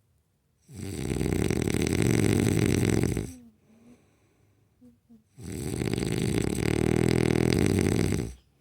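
A man snoring: two long snores, each about two and a half to three seconds, with a quiet gap of about two seconds between them.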